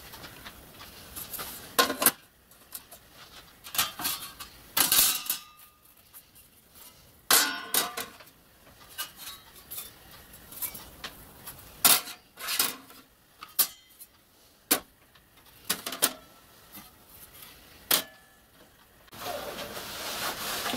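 Thin brass and copper sheets and a metal tank frame being handled and set down, giving irregular clanks and clinks, some with a short ring. Near the end, a softer rustling shuffle.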